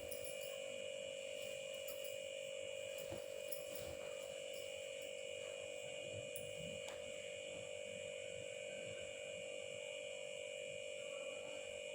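A steady electrical hum made of several constant tones, with a few faint clicks.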